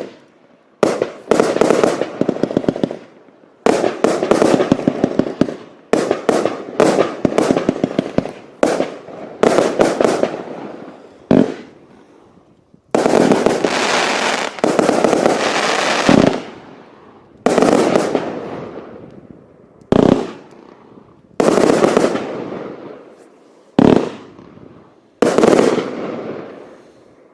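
Consumer compound firework battery firing. A quick rapid-fire run of shots lasts until about 11 seconds in. After that, single loud bursts come about every one and a half to two seconds, each ringing away as it fades.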